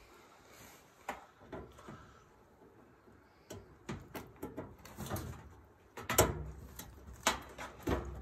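Hand screwdriver working at screws on the gas valve bracket inside a dryer's burner compartment: scattered metal clicks, taps and knocks, growing busier in the second half, the loudest about six seconds in.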